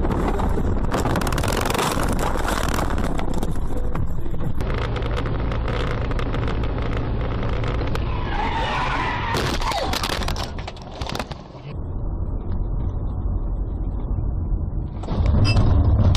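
Car driving with steady road and engine noise. Its tyres skid and squeal about eight to ten seconds in, followed by a few sharp knocks.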